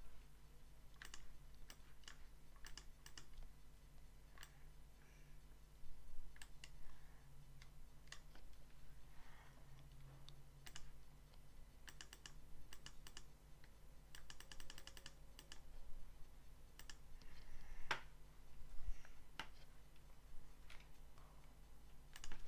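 Computer mouse and keyboard clicks while working in a drawing program: scattered single clicks and short runs, with a quick even run of clicks about two-thirds of the way through.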